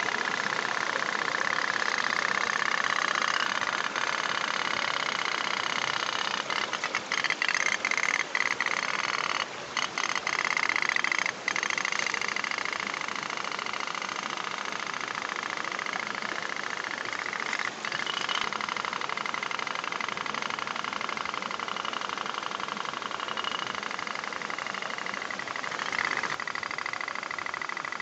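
Toy pop-pop (otok-otok) steam boat running, its tin boiler making a rapid, steady putt-putt tapping.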